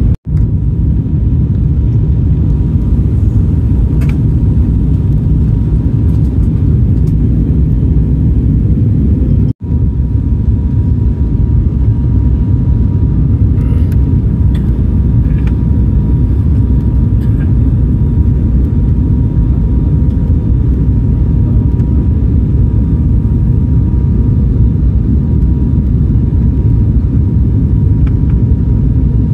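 Loud, steady low rumble of a vehicle in motion, heard from inside, with a faint steady high whine over it. The sound cuts out briefly twice, near the start and about ten seconds in.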